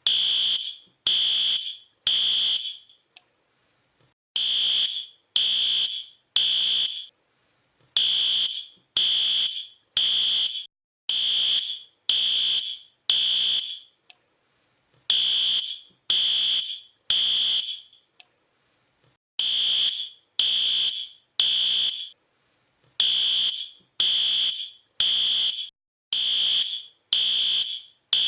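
Fire alarm sounding: a piercing high-pitched beep about once a second, mostly in sets of three with a longer pause between sets, the temporal-three evacuation pattern; some stretches run six beeps in a row.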